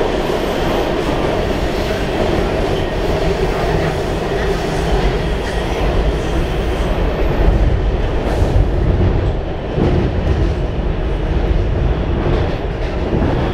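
Washington Metro railcar in motion, heard from inside the car: a steady, loud rumble of the wheels running on the rails.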